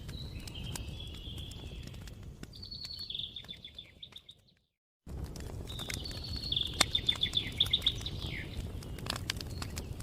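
Campfire crackling with scattered sharp pops over a low rumble, while a songbird sings repeated trilled phrases. Shortly before the middle everything fades out to about a second of silence, then cuts back in: a splice in the recording.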